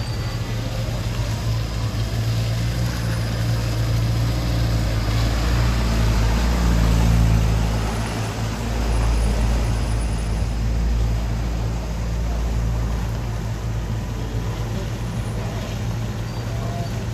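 A heavy vehicle's engine running steadily with a low drone, growing louder toward the middle and then easing off.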